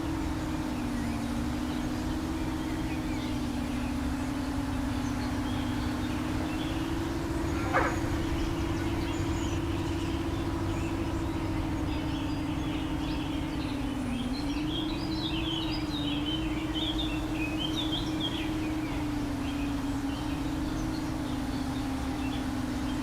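Steady hum of a small FPV quadcopter's motors, its pitch dipping and rising slightly as it flies. Birds chirp in the middle of the stretch, and there is a single sharp click about eight seconds in.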